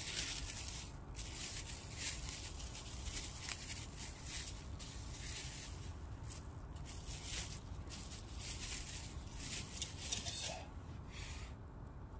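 Cling film being peeled off a raw venison patty: irregular crinkling and rustling of plastic wrap in short bursts, stopping near the end.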